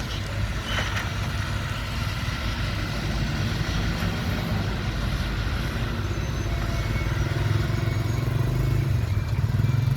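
Heavy diesel engine of an earthmoving machine running steadily, its low hum growing louder over the last few seconds as it works harder.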